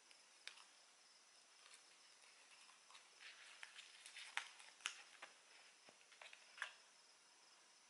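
Faint clicks and rustles of a fine chain necklace being handled and fastened around the neck, a cluster of small sharp clicks in the middle, over a faint steady high-pitched chirring.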